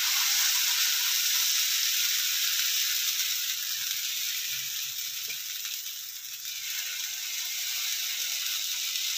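Rava uttapam batter sizzling with a steady hiss on a hot, oiled griddle as it is poured and spread with a ladle.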